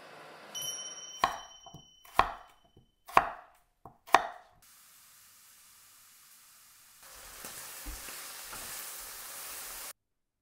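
Knife cutting through peeled raw potatoes on a wooden cutting board: four sharp chops about a second apart. After a pause comes a steady hiss for about three seconds, which cuts off suddenly.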